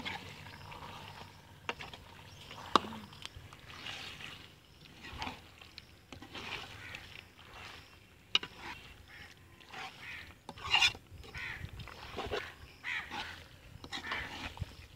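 Metal spatula stirring chicken pieces in a thick masala in a steel karahi: repeated scraping strokes against the pan with a few sharp clinks, the loudest about three seconds in and near eleven seconds, as the chicken is fried (bhuna) in the masala.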